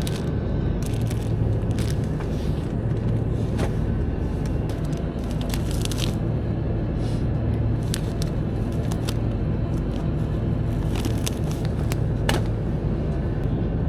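Road noise inside a moving car: a steady low rumble from engine and tyres, with scattered small clicks and rattles in the cabin.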